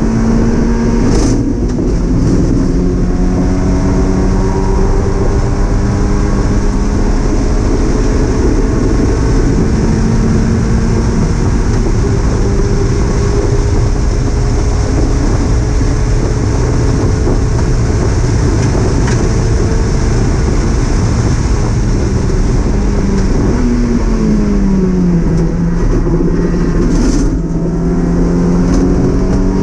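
Mazda MX-5 race car's four-cylinder engine running hard at high revs, heard from inside the cockpit with road and wind noise. Its note climbs slowly through most of the stretch, sinks over a couple of seconds about 23 seconds in, then climbs again.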